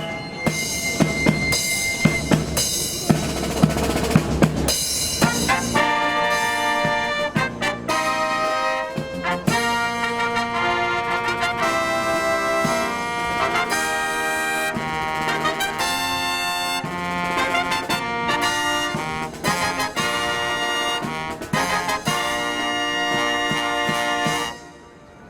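Marching brass band playing a fanfare: trumpets, trombones and tuba over drums. Drumming in the first few seconds gives way to held brass chords, and the music stops about a second before the end.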